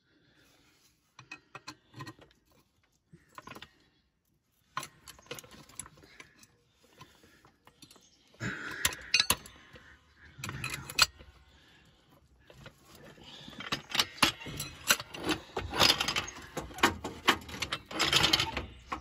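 Steel floor jack being worked and shifted: metallic clicking, clanking and rattling. A few scattered clicks at first, then louder and busier clatter from about halfway through.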